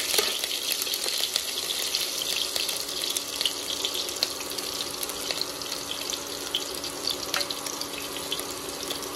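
Cumin seeds and chopped green chillies sizzling in hot mustard oil in a kadhai: a steady hiss with frequent small pops and crackles, over a faint steady low hum.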